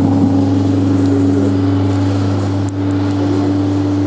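Coin-operated kiddie ride's electric drive motor running during a ride cycle: a steady hum with a constant whining tone.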